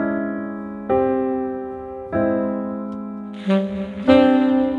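Background music: slow piano chords, each struck and left to fade, with a held, breathy wind-instrument note coming in over them about three and a half seconds in.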